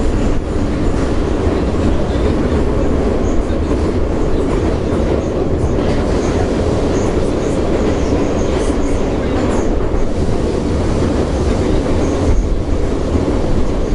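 Yekaterinburg metro train running between stations, heard from inside the passenger carriage: a loud, steady rumble of wheels and running gear on the rails.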